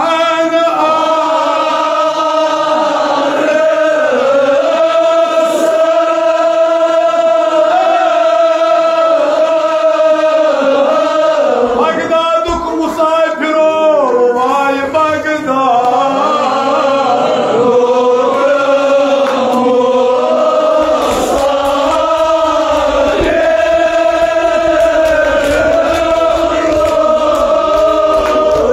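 Male voice chanting a Kashmiri marsiya (elegy) into a microphone, in long held notes that rise and fall slowly, with other men's voices joining in.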